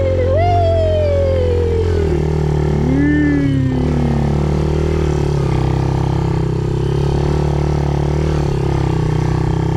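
A vehicle engine running steadily at a constant pace. Two falling whine-like tones pass over it: a long one over the first two seconds and a shorter one about three seconds in.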